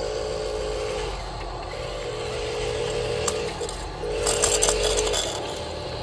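Electric drive motor and gearbox of a toy RC wheel loader whining in spurts as it drives over dirt, stopping and starting with the throttle. A burst of rattling and clicking comes about four seconds in.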